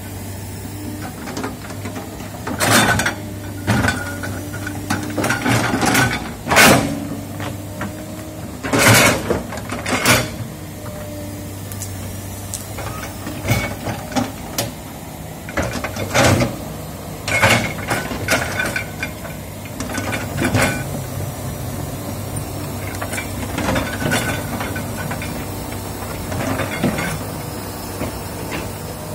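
Komatsu PC200 hydraulic excavator's diesel engine running steadily, with repeated sharp knocks and cracks as the bucket rakes through brush and soil and breaks branches.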